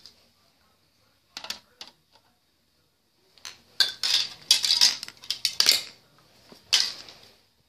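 Marbles clattering through a marble run toy. A few separate clicks come first, then a dense run of rattling clatter for about two and a half seconds, and one more burst near the end.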